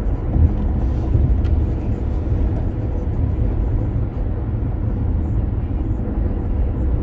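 Steady low rumble of tyre and engine noise heard inside a car's cabin while it drives at highway speed.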